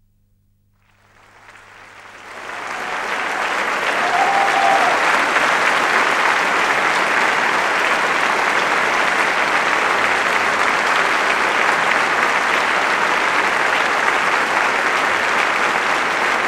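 Theatre audience applauding at the end of a dance performance, breaking out of silence about a second in and swelling within a couple of seconds to steady, loud clapping.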